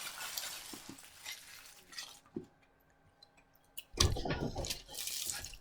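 Rustling and light clattering of takeout food packaging being handled, dying away, falling quiet for over a second past the middle, then starting up again louder with sharp clicks.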